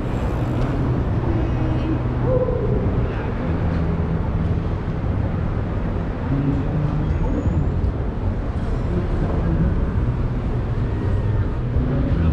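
City street ambience: steady traffic noise with car engines running and a low engine hum rising and falling.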